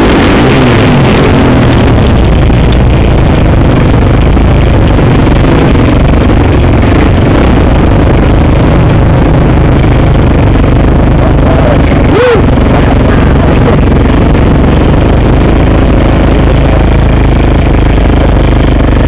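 Onboard sound of a motocross dirt bike's engine running as the bike rides off the track at low speed, loud and distorted on the bike-mounted microphone. A short rev rises and falls about twelve seconds in.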